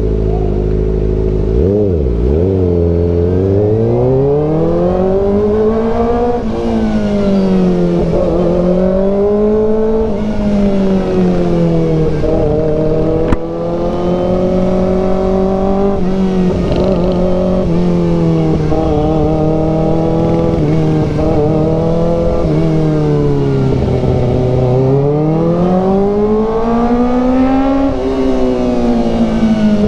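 Kawasaki ZX-4RR's 399 cc inline-four engine idling, then blipped and pulling away about two seconds in. Its pitch climbs and drops repeatedly as the bike accelerates, eases off and shifts gears, with one sharp click about 13 seconds in.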